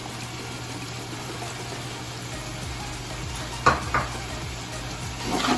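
Onions, tomatoes and fresh mint and coriander leaves sizzling in hot oil in an aluminium pot, a steady frying hiss. Two quick metal clinks of the ladle against the pot come about two-thirds of the way through.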